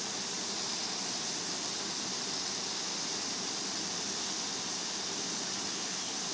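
Chicken pieces frying in blended spice paste in a wok, a steady sizzling hiss.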